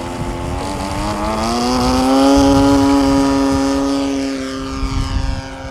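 Small model-aircraft engine, a 20cc rotary, opening up for the takeoff run. Its pitch climbs over the first two seconds and then holds steady at full throttle as the quarter-scale Sopwith Pup model lifts off. It grows a little fainter near the end as the plane climbs away.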